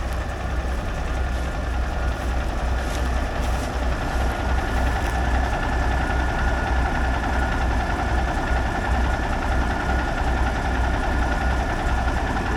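Diesel engine of an old International Eagle semi truck running steadily, heard from inside the cab: a deep, even rumble with a faint thin whine above it.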